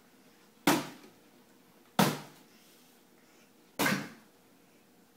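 Three whacks of a bat striking a hanging piñata, spaced about a second or two apart, each a sharp hit that dies away quickly.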